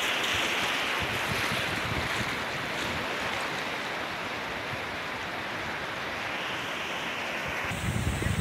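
Sea surf washing in over a shallow beach: a steady, even hiss of small breaking waves. Near the end, wind buffeting the microphone adds a low, gusty rumble.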